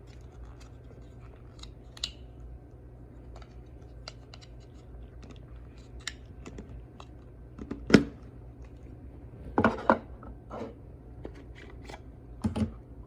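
Cube packaging and small plastic parts being handled: scattered clicks and scrapes, with a sharp knock about eight seconds in and a few louder clattering handling sounds later on.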